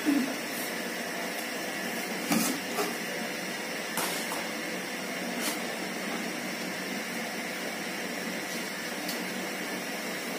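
Steady background hiss, with a few light clinks and knocks of metal kitchenware as a steel plate used as a lid is lifted off an aluminium cooking pot and handled.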